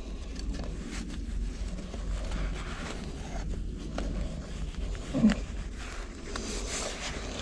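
Faint metallic clicks and scraping of an Allen key turning a chainring bolt into a bicycle crank, over a low steady hum, with one brief louder low sound about five seconds in.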